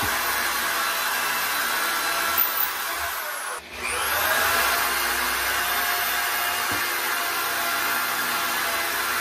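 Corded electric drill running at speed, boring small pilot holes through a cabinet drawer front for pull hardware. About three and a half seconds in the trigger is let go and the motor winds down, then it spins back up and runs steadily.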